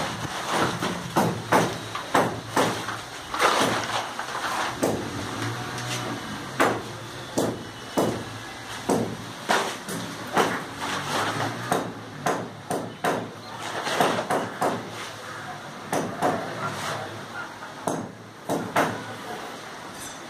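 Hammer blows on a chisel cutting into a brick wall for electrical wiring: sharp, irregular strikes, about one to two a second.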